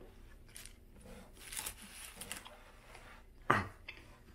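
Quiet eating and handling sounds: soft chewing and faint clicks of fingers picking at a burger on its paper wrapper, then a brief louder rustle about three and a half seconds in as a paper napkin is wiped across the mouth.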